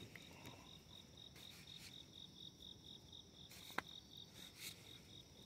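Faint cricket chirping, a high tone pulsing in an even, rapid rhythm, with a single sharp click about four seconds in.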